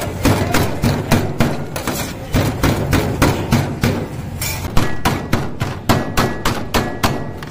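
Broad steel blade chopping shredded shawarma chicken on a steel tray: a fast, even run of sharp metal-on-metal knocks, about four to five a second.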